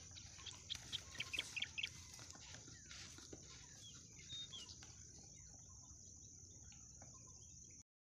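Birds calling in the open: a quick run of short, high calls about a second in, then a couple of brief rising notes a few seconds later, over a steady high hiss.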